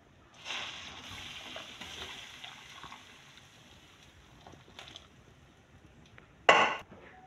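Water poured from a jug into a hot wok, hissing and bubbling as it hits the hot metal and throwing up steam. The hiss fades over about two and a half seconds. Near the end comes one short, loud burst of noise.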